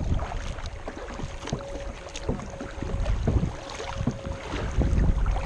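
Small wind-driven river waves slapping and splashing against a kayak hull in short scattered splashes, over steady wind noise on the microphone.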